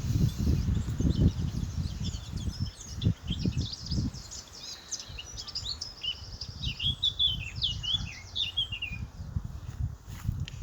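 Birds chirping and twittering in quick runs of short calls, busiest about five to nine seconds in, over low rumbling knocks that are loudest in the first four seconds.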